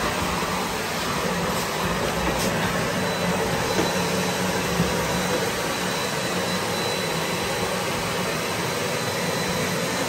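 Vacuum cleaner running steadily: an even rushing noise with a low hum and a faint high whine.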